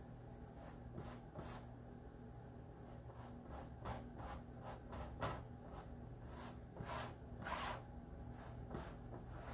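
Small squeegee scraping and spreading paste across a silk-screen stencil: a run of faint, short, irregular scraping strokes, a few of them longer.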